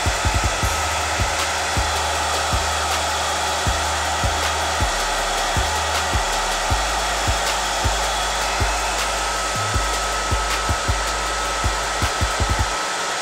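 Hand-held hair dryer blowing steadily, with a thin steady whine over the rush of air and irregular low thumps throughout.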